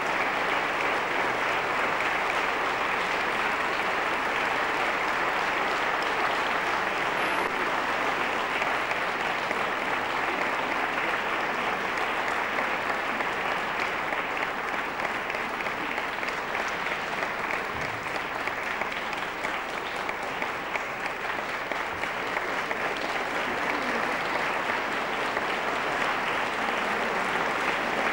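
Concert audience applauding: a long, steady round of clapping.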